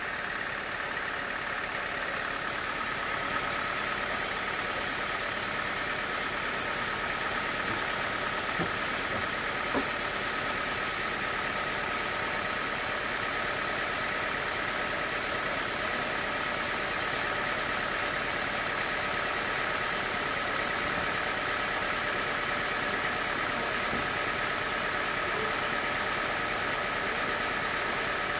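Sawmill machinery running steadily, not cutting, with a constant high-pitched whine over an even mechanical noise and a couple of faint clicks.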